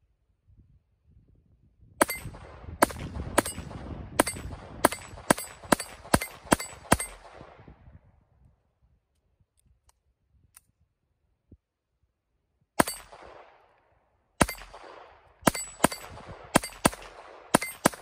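Smith & Wesson M&P22 Compact .22 LR semi-automatic pistol firing Remington Thunderbolt rounds: a rapid string of about ten sharp shots, a pause of several seconds, then a second quick string of shots. The pistol fires and cycles each round in quick succession without a stoppage.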